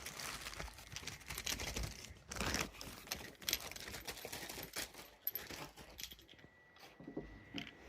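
Plastic packaging rustling and crinkling, with light clicks and clinks, as a new vacuum pump is unwrapped and handled. The noises are busiest over the first few seconds and die down towards the end.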